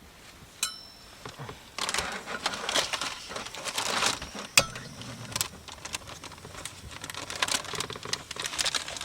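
Plastic packaging crinkling and rustling in irregular bursts as it is handled. There is a light clink with a brief ringing tone just before a second in, and a sharp click about halfway through.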